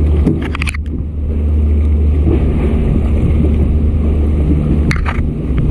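A steady low rumble with a few brief clicks, a cluster of them about half a second in and a couple more near the end.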